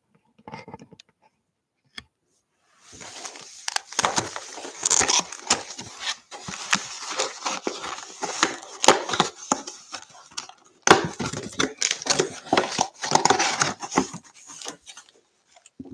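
Plastic shrink wrap being torn off a sealed trading card box and crumpled, then the cardboard box opened and its display lid folded up: dense crinkling and tearing with many small clicks. It starts about three seconds in and breaks off briefly about two-thirds through.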